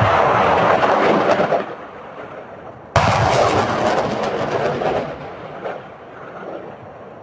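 Two rockets fired from a multiple launch rocket system, about three seconds apart. Each starts with a sudden blast and carries on as a loud rushing of the rocket motor that fades over a second or two.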